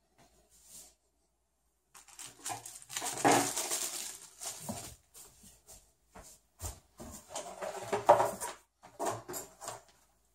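Irregular handling noises: crinkling of a plastic anti-static bag and clatter of a graphics card and hand tools being set down and picked up, loudest about three and eight seconds in.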